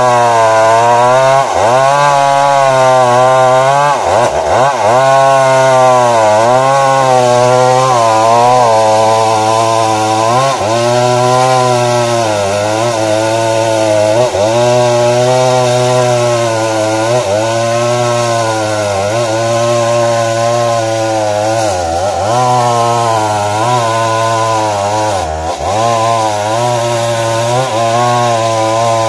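Stihl MS 382 two-stroke chainsaw running at full throttle while cutting through thick wood. The engine note sags and recovers every second or two as the chain bogs under load.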